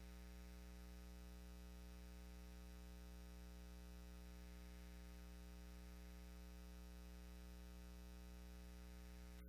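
Near silence: only a steady low electrical hum with a buzzy edge.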